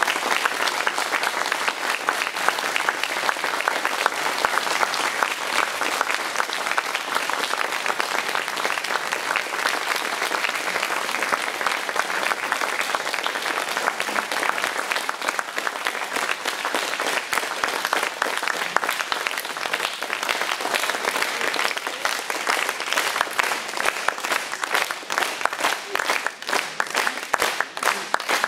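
Audience applauding a saxophone quartet at the end of a piece, steady clapping throughout, becoming more even and rhythmic near the end.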